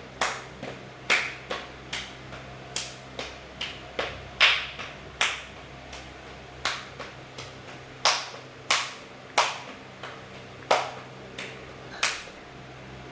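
About twenty sharp smacks at uneven spacing, with short pauses near the middle, over a steady low hum.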